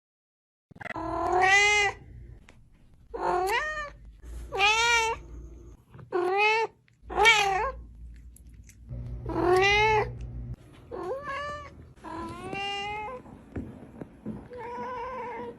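Domestic cat meowing over and over, about nine drawn-out meows with gaps between them, the last one fainter and flatter.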